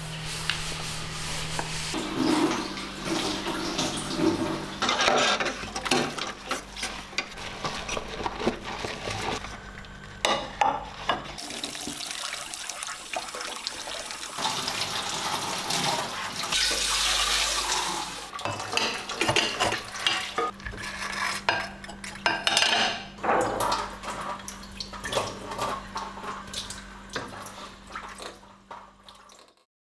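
Ceramic cups and bowls being hand-washed in a stainless steel sink, with tap water running and splashing and the dishes clinking against each other. The sound fades out just before the end.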